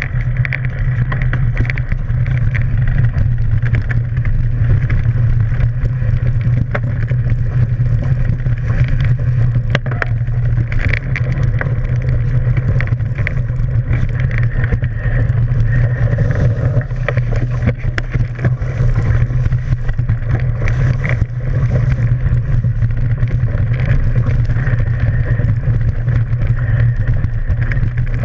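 Mountain bike rolling fast down a dirt trail, heard from a camera mounted on the bike: a steady low rumble of wind and the knobby tyre running over dirt and dry leaves, with scattered sharp rattles and knocks from bumps.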